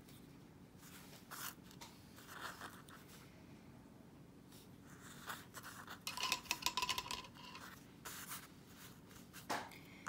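Quiet, scattered scraping, rustling and light knocks as a painted stone is handled and slid across a paper-covered work table, with a denser run of clicks and scrapes a little past the middle.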